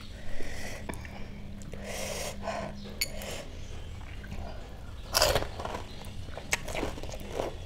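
Close-miked eating of pani puri: crisp puri shells crunching and being chewed, with scattered wet mouth clicks and one louder crunch a little over five seconds in.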